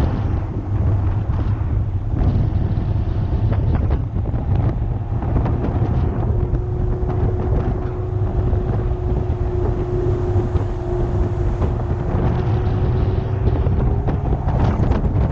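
Porsche sports car driving at a steady pace, recorded on a car-mounted camera: a heavy low road-and-engine rumble with wind noise on the microphone, and a steady engine note holding through the middle.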